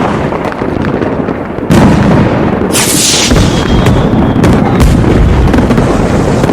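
Aerial fireworks going off in rapid succession. There is a loud boom a little under two seconds in, a crackling hiss about three seconds in, and then a faint high whistle.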